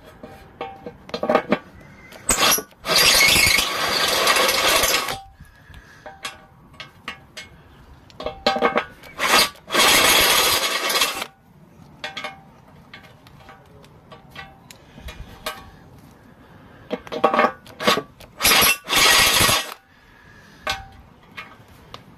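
Cordless drill with a stepped drill bit cutting into an aluminium engine sump in three bursts of a few seconds each, opening the hole out to size for an AN10 weld-in fitting. Between the bursts, short metal clinks as the aluminium fitting is tried in the hole.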